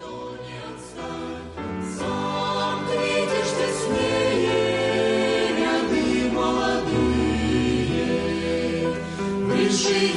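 Choir singing, the music swelling over the first couple of seconds and then holding steady.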